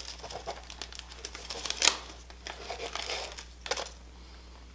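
Plastic fishing-lure packaging crinkling and crackling as a swim jig is worked out of it by hand, with two louder crackles about two seconds in and just before the end, then the rustling stops.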